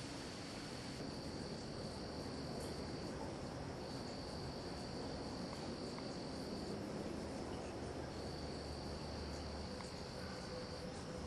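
An insect trilling at one steady high pitch, in long runs of about three seconds with short breaks between them, over a steady faint background hiss.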